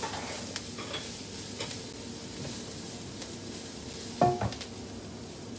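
Sliced winged beans sizzling in hot oil in a wok, stirred and scraped with a silicone spatula. A single short knock with a brief ring sounds about four seconds in.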